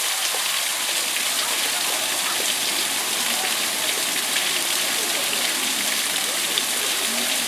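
Steady rush of water, an even hiss with no pauses, with faint voices in the background.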